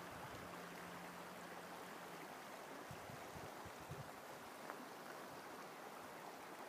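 Faint, steady rush of a river flowing nearby, with a few soft low thumps.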